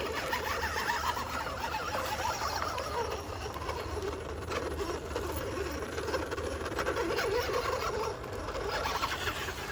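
Electric motor and gear drivetrain of a 1/10 scale 6x6 RC truck whining as it drives, the pitch wavering up and down with the throttle.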